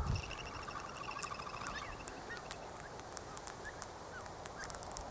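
Wild birds calling: a rapid chattering trill in the first two seconds, then scattered short high chirps.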